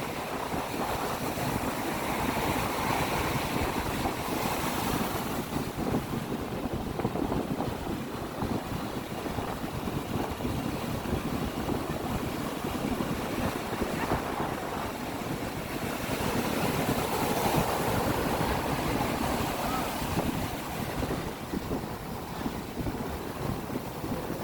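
Sea waves washing in continuously, rising in two louder surges, one early and one past the middle.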